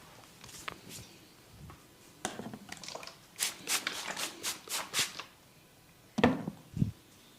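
Hands working over a body in a massage: soft rubbing and clicks, then a quick run of about six sharp hand strikes, roughly four a second, and two duller thuds near the end.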